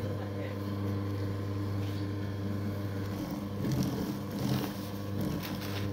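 Electric mochi maker running while it kneads steamed glutinous rice: a steady motor hum. A little past halfway it turns uneven, with irregular low thuds and rumbling from the dough turning in the bowl.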